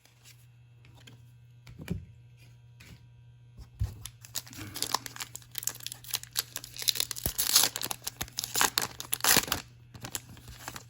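A trading-card pack's wrapper being torn open and crinkled by hand. A couple of light knocks come first, then several seconds of dense crackling and rustling that stops near the end.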